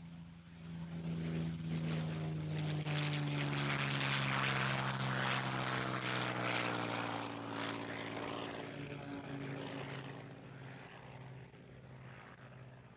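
Tsunami racer's Rolls-Royce Merlin V12 at takeoff power with its propeller, passing by. It swells within the first second, its note slowly dropping in pitch as it goes by, then fades as the aircraft climbs away.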